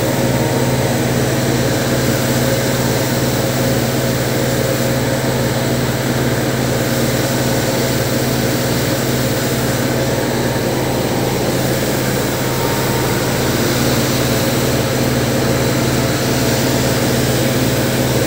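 Automatic carpet-washing machine running steadily: motor and rotating scrubbing brushes hum with a low, even pulse a few times a second, over the hiss of water spraying from its jet pipe onto the rug.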